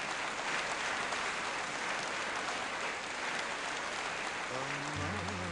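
Audience applauding steadily. Near the end, music comes in with a low held drone and a melody over it.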